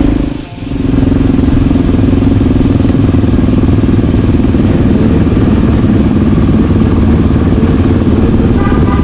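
Motorcycle engine running steadily while riding, with a brief dip in sound about half a second in.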